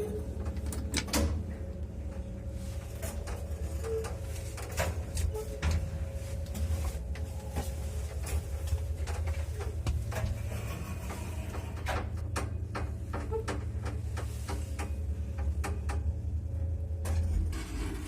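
1983 MLZ passenger lift cabin moving in its shaft: a steady low hum with a faint steady tone, and many scattered creaks and clicks from the cabin. The hum drops near the end.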